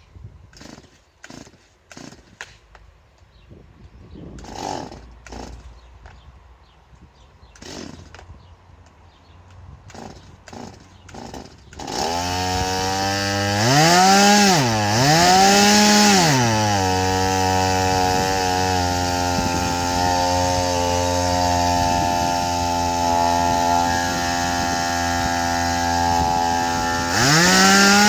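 Stihl MS 180 two-stroke chainsaw catching after some faint clicks and knocks, revved up and down twice, then running steadily at a lower speed before being revved up and held high near the end.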